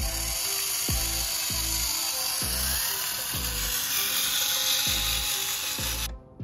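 Background music with a steady deep beat, over a loud high-pitched whirring from the RC model tractor's small electric motor and gears, which cuts off abruptly near the end.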